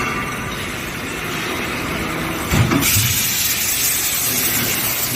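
Laser pipe-cutting machine running on its trial run, a steady machine noise. About halfway through, a brief low knock comes, and then a loud hiss starts and holds.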